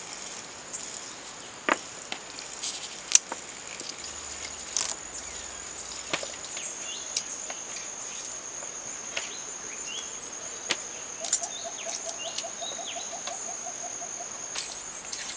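A steady high-pitched insect drone, with a few short bird chirps and a quick trill later on. Over it come scattered sharp clicks and taps as coffee cherries and beans are handled on a woven bamboo tray.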